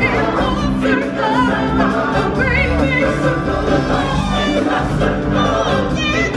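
Live stage-show music: singers with a wide vibrato and a choir over sustained instrumental backing.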